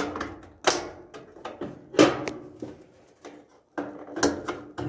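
Several sharp knocks and clatters of dryer parts being handled and fitted during a repair, spaced irregularly about a second apart.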